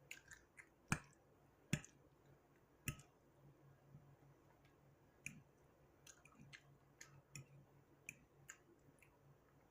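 Quiet eating sounds: faint chewing with sharp mouth clicks and smacks, the three loudest in the first three seconds and fainter ones after.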